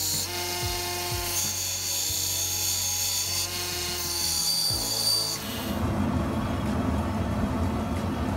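Belt grinder running with a forged rebar blade pressed against the belt: a high grinding hiss over a steady hum. About five and a half seconds in, the sound changes to a low, steady rumble.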